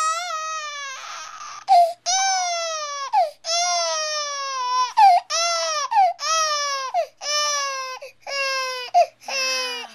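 Three-month-old baby crying after being startled by a sneeze: a run of high wails about a second each, every one falling in pitch at its end, with short catches of breath between. The parent takes it for fake crying.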